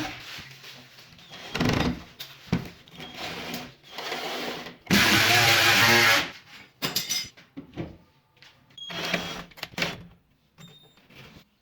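A power tool running in short bursts of a second or so, stopping and starting several times, with a few sharp clicks in between.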